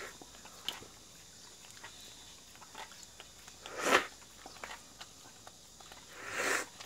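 A Jindo dog licking ice cream from a small plastic cup: faint wet tongue clicks and lapping, with two louder short noises about four seconds in and near the end.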